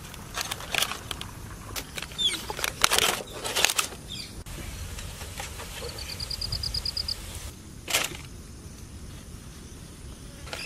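Outdoor sound: a run of sharp crackles and clicks, then a small bird's quick trill of about ten even notes a little past the middle, and one more sharp click near the end.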